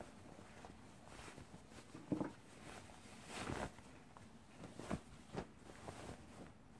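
Faint rustling and brushing of cotton fabric as a lined jacket is pulled through itself and turned right side out by hand, with a few short, louder brushes and taps.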